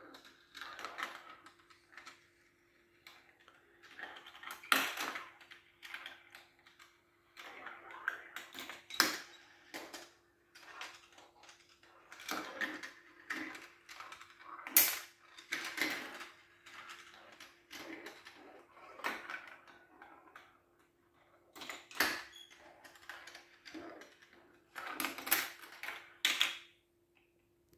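Steel marbles rolling and clattering through a GraviTrax plastic marble run: runs of rattling and clicking as they roll along the rails and tracks, drop and knock into the plastic pieces, with short pauses between. The clatter stops about a second before the end, over a faint steady hum.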